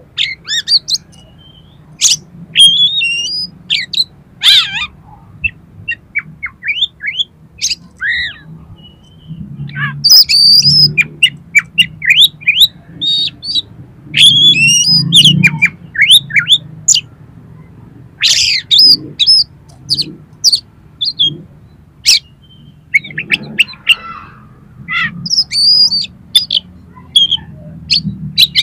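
Oriental magpie-robin singing: quick bursts of varied whistled and chirping notes with short pauses between them, over a faint low steady hum.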